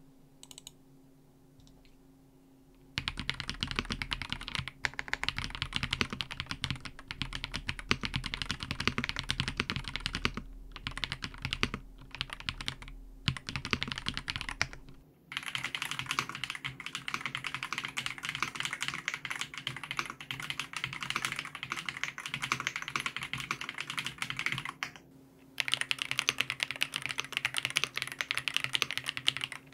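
Steady fast typing on an Ajazz AK820 Pro mechanical keyboard with stock Ajazz Flying Fish linear switches and PBT Cherry-profile keycaps, beginning about three seconds in with a few brief pauses. The keystrokes are crisp and mid-pitched, the sound of the long-pole linear switches. The stabilized long keys are fairly quiet and free of rattle. About halfway through, the sound changes character as a different microphone takes over.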